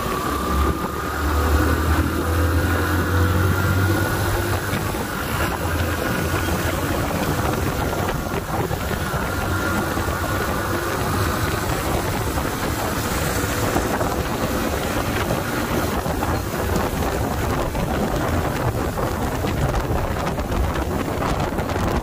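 Suzuki GSX125R's single-cylinder engine running under way as the bike is ridden and accelerated, rising in pitch over the first few seconds. A steady rush of wind and road noise runs through it.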